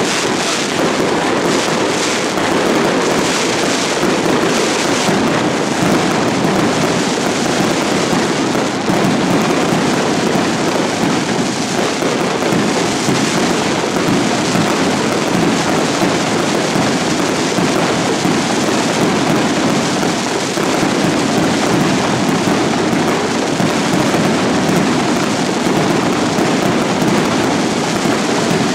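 Mascletà firecrackers (masclets) exploding in a dense, continuous barrage. The bangs are a little more separate in the first few seconds, then merge into one unbroken, loud rattle.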